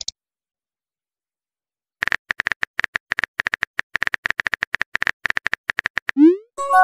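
Rapid typing clicks from a phone keyboard sound effect, several taps a second, start about two seconds in as a message is typed. Near the end come a short rising swoosh for the message being sent and a notification chime of several tones.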